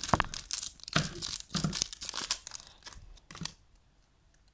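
Foil packet crinkling and rustling as it is handled, in quick irregular crackles for about three seconds.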